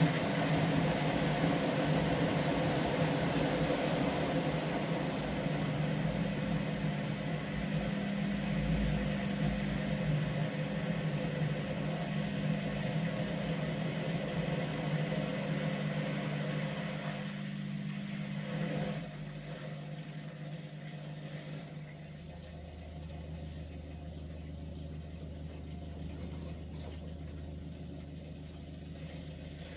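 Ariston washing machine running its first wash cycle after repair: a steady motor hum under a rushing hiss that fades out after about 17 seconds, then a lower steady hum from about 22 seconds in.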